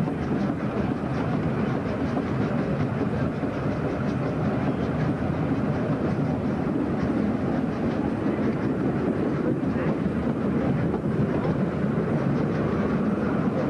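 Steam-hauled train of vintage carriages running along the line, heard from an open carriage end balcony: a steady rumble of wheels on rail with the locomotive working ahead.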